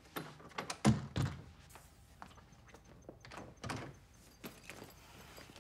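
A wooden door being handled, with a few scattered thumps, the loudest about a second in, and footsteps on the floor.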